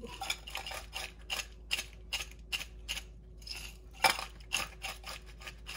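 Hand-twisted spice grinder grinding black salt (bit lobon) into the soup: a quick run of crunchy ratcheting clicks, about three to four a second, with one louder click about four seconds in.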